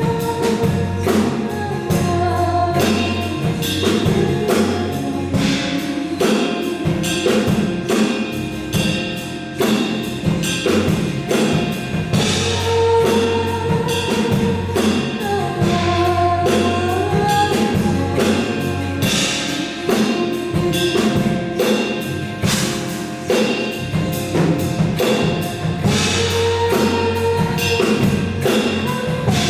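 Live band playing a passage of the song without words transcribed: steady drum hits under sustained pitched notes, with perhaps some voice in the mix.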